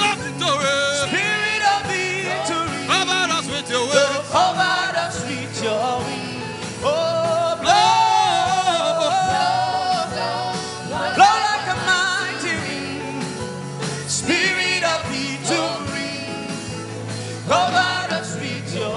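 Gospel worship music: a solo voice singing long, gliding phrases over sustained low keyboard notes with a light steady beat.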